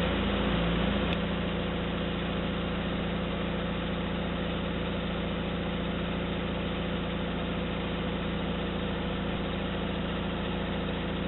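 Vehicle engine idling steadily close by, with a single sharp click about a second in.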